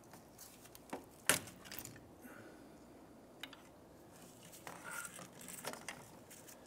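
Plastic retainer clip on an ABS sensor wire prised loose with a trim tool: one sharp snap about a second in, then faint clicks and rustling as the tool and wire are handled.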